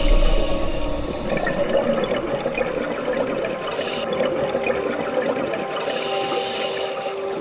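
Underwater sound picked up by a camera in a dive housing: a steady watery rushing and bubbling.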